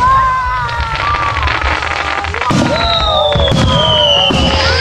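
Fireworks going off: repeated bangs and crackling bursts, with whistles sliding down in pitch.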